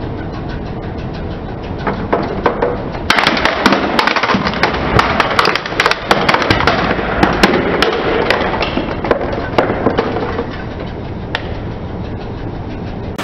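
Plastic toy water pistol cracking and snapping as a car tyre rolls over it. The sharp cracks come thickest from about three seconds in and thin out after about seven seconds.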